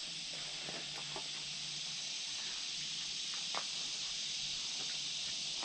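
Steady high-pitched hiss of an insect chorus in summer woods, with a few soft footsteps crunching on leaf litter, one a little sharper about three and a half seconds in.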